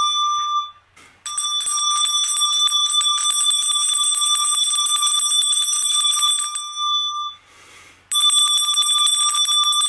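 A metal handbell shaken rapidly and continuously, its clapper striking many times a second over a bright, steady ringing tone. The ringing breaks off briefly about a second in and again about seven seconds in, then starts again.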